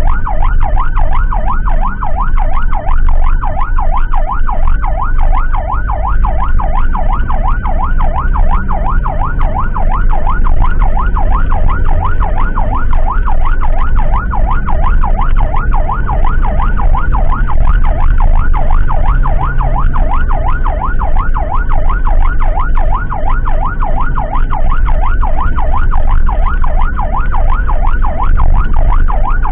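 An emergency vehicle siren on a fast yelp, sweeping up and down about three times a second without a break, over the low rumble of a vehicle on the road.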